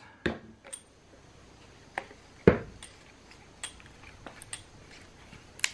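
Scattered clicks and knocks of PVC and brass pipe fittings being handled and screwed together, with one louder knock about two and a half seconds in.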